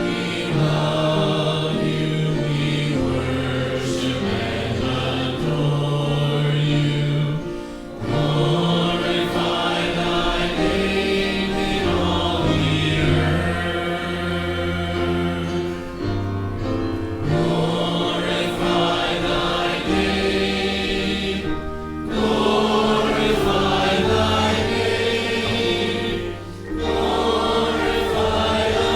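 A group of voices singing a hymn over a steady instrumental accompaniment, in long held phrases with brief breaks between them.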